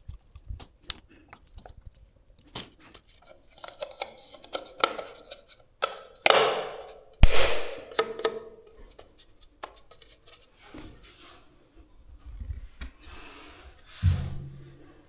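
Hand work on a wall power socket: scattered sharp clicks and scraping, rubbing handling noise, loudest about halfway through, with a low thump near the end.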